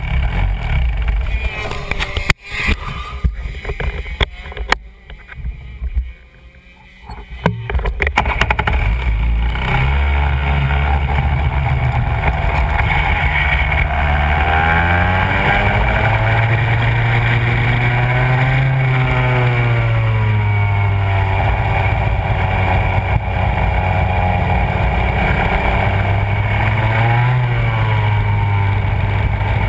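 Go-kart engine heard from a camera mounted on the kart. For the first seconds the sound is rough and uneven, with a sharp click and a short lull. About eight seconds in the engine picks up and runs steadily, its pitch rising and falling again and again as the kart accelerates and lifts off through the corners.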